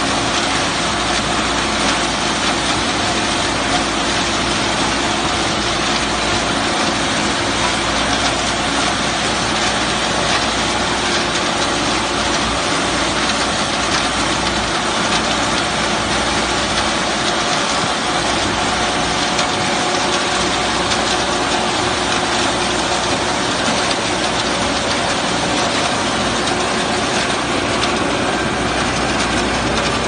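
Small tractor engine running steadily under load while driving a tractor-mounted two-row corn silage harvester that cuts and chops standing corn stalks. The result is a dense, continuous mechanical clatter and rush that does not let up.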